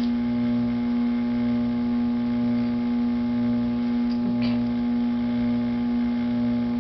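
Electric potter's wheel running, its motor giving a steady hum with a low part that swells and fades about once a second as the wheel turns.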